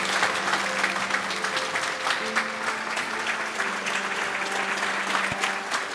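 Audience applauding steadily, a dense patter of many hands clapping, with a few long held music notes underneath.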